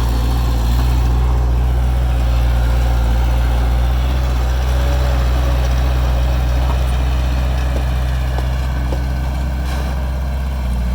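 Diesel engine of heavy earthmoving equipment running steadily with a deep, even drone.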